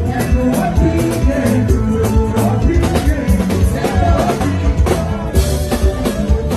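Live band music: a drum kit keeping a steady beat under bass guitar and keyboards, with a lead singer and backing singers over it.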